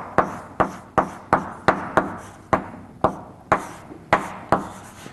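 Chalk striking and writing on a blackboard: about a dozen sharp taps at an uneven pace, two to three a second, each trailing off briefly, as a line of math is written out.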